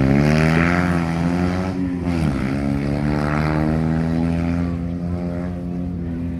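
Rally car engine at high revs, accelerating past: its pitch climbs, drops at a gear change about two seconds in, then holds high as it slowly fades a little.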